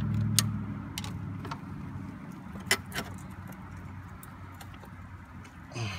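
Sharp light metallic clicks of a screwdriver and screw-type hose clamp as a coolant hose is worked onto a car's thermostat housing, with a few louder clicks about half a second in and near three seconds. A low steady hum fades out in the first second and a half.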